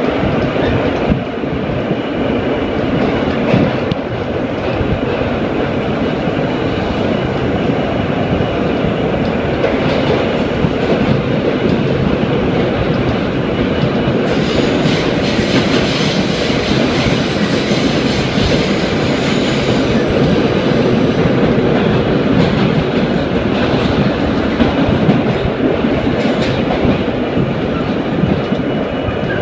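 R32 subway train running at speed through a tunnel: a steady, loud rumble of wheels on the rails. Around the middle the noise turns harsher and brighter for about six seconds.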